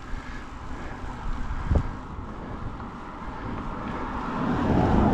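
Wind rushing over the microphone while riding a mountain bike, with one short thump about two seconds in and the rushing growing louder near the end.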